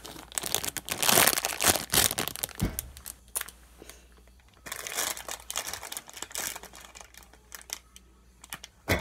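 Clear plastic packaging bag holding a popcorn squishy crinkling as it is handled, loudest in the first three seconds, with another bout about five seconds in. A sharp knock near the end.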